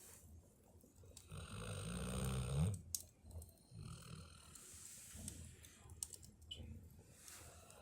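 A sleeping puppy snoring: one long, louder snore about a second in that rises in pitch as it ends, then softer snoring breaths.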